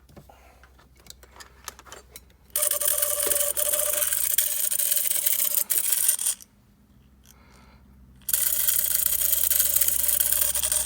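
Small 12 V AC magnetic-rotor pump from a PetSafe cat water fountain, running partly disassembled: a loud harsh rattling buzz over a steady hum, starting about two and a half seconds in after a few handling clicks, stopping briefly mid-way and starting again. The noise is the pump's fault, which the owner suspects is a lack of lubrication.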